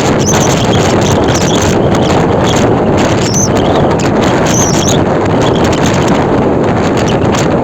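Strong wind blowing across the microphone in gusts, over the steady noise of a rough sea breaking. A few faint high squeaks come and go.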